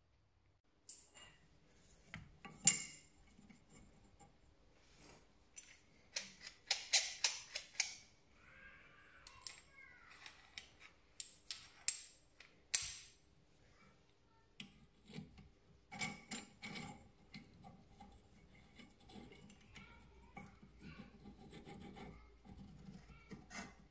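Metal tools clicking, knocking and scraping as a brake caliper piston wind-back tool is fitted to a rear brake caliper and turned against the piston. Sharp clinks come in the first half, and steadier rubbing and scraping follows in the second.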